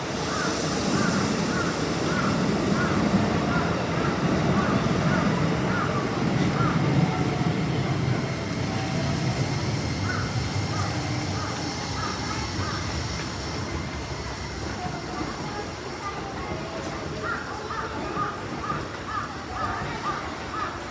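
Keikyu electric train running through the station, a rumble with hiss that is loudest in the first half and then fades. Over it, a quick repeated beeping of about three notes a second is heard at the start and again near the end.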